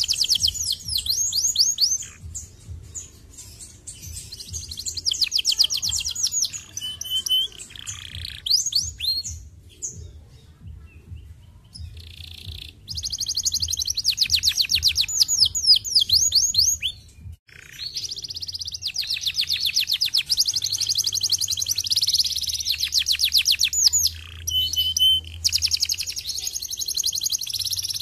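Domestic canary singing long runs of rapid, evenly repeated high trills and chirps, broken by short pauses and a brief lull about ten seconds in.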